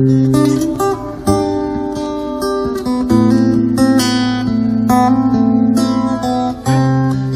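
Acoustic guitar strumming chords in an instrumental passage of a song, the chord changing every second or two.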